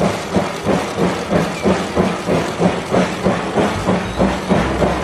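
Train sound of a locomotive chugging in a steady rhythm of about three chuffs a second, with a hiss.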